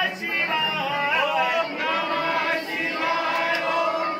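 Crowd of many male voices chanting together in a close space, with overlapping held, pitched notes.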